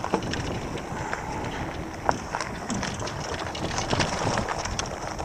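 Wind noise on the microphone and tyres rolling under a moving electric bicycle, with scattered light clicks and rattles.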